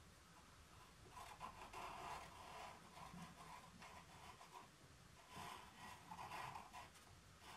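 Faint scratching of a drawing stick moving across paper, in two spells of strokes: one from about a second in, another near the end.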